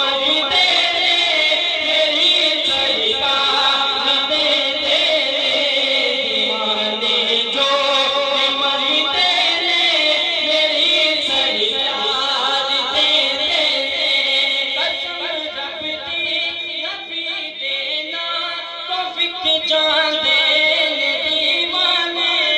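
Men singing a Punjabi naat, a devotional song, into handheld microphones and amplified over a sound system; the singing is continuous and melismatic.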